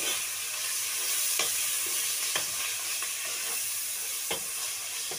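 Onions and ginger-garlic paste sizzling in hot oil in a metal pot, being lightly fried to cook off the paste's raw taste. A metal spoon stirs them, knocking against the pot several times.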